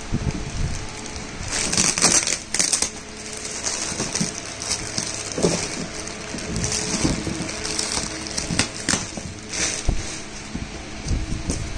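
Clear plastic wrapping crinkling and a cardboard box rubbing and scraping under the hands, in irregular bursts.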